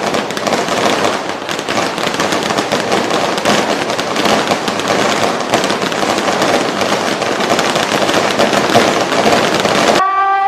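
Firecrackers going off in a dense, continuous crackle that cuts off suddenly near the end.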